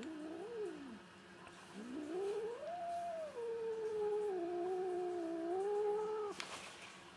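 Domestic cat yowling with annoyance while being petted on the head as it eats: a wavering call that dies away about a second in, then after a short pause a long drawn-out yowl that rises, holds and stops abruptly near the end. A brief rustle follows.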